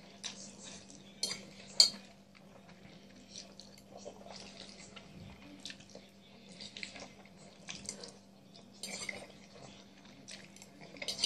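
Close-up eating sounds: wet chewing and lip-smacking on creamy pasta and fried chicken, with a metal fork clinking against the plate, one sharp clink about two seconds in. A faint low hum runs underneath.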